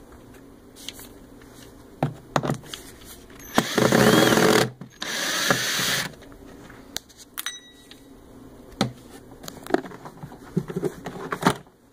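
Ryobi cordless drill/driver running in two bursts of about a second each, backing out a missed screw from the carpet cleaner's plastic housing. Scattered clicks and knocks follow as the housing is handled.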